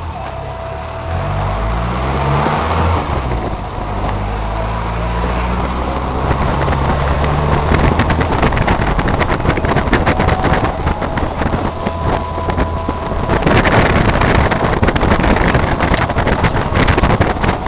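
A car driving: an engine hum that rises and falls in pitch over the first few seconds, giving way to a loud road rumble with many sharp clicks and rattles, which gets louder and rougher near the end.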